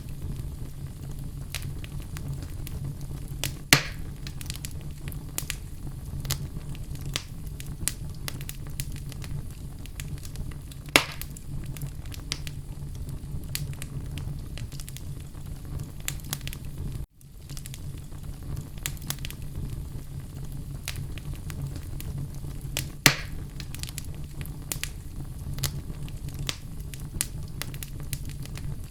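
Fire crackling steadily over a low rumble, with many small crackles and a few louder pops, three of them standing out. The sound drops out for an instant a little past halfway, then carries on.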